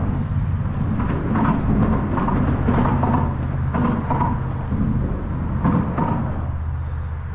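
Steady low rumble of road traffic, with irregular footsteps crunching through dry brush and litter.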